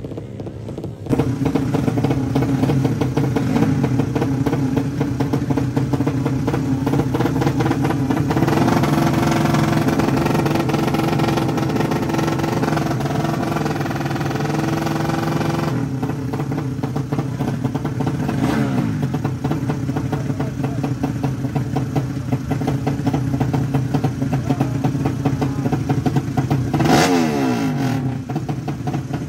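Drag-racing motorcycle engines running loud and revving. Later, bikes held at the start line give sharp throttle blips whose pitch rises and falls, two of them standing out.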